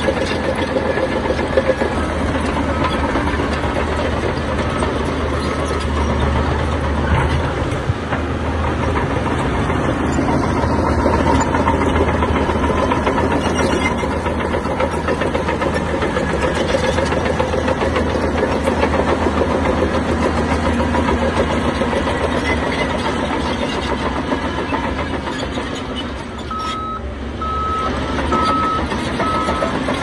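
Heavy diesel construction machinery running steadily under load, with a deep low engine hum. Near the end a reversing alarm starts up, a regular single-tone beep repeating at an even rate.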